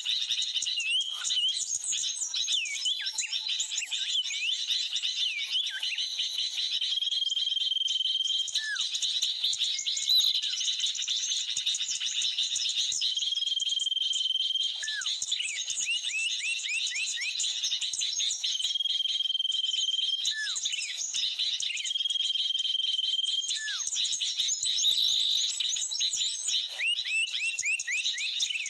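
Bird-lure recording of agitated sooty-headed bulbuls mixed with small birds, played on a loop. Dense high twittering runs over a steady high buzz, and a held whistle followed by a falling call recurs about every six seconds.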